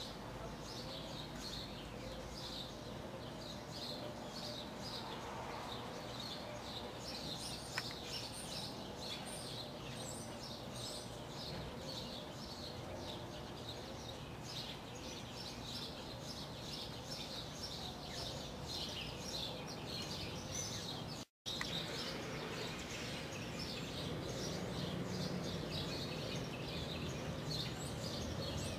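Birds chirping over a steady background hum, many short chirps in quick succession, with a brief dropout in the sound about two-thirds of the way through.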